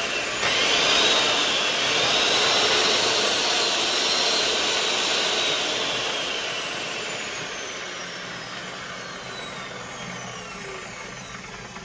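Dongcheng DJG03 2100 W cut-off saw's brushed motor, started with a brief squeeze of the trigger and running free with no load. Its high whine holds for a few seconds, then sinks in pitch and fades steadily as the motor coasts down.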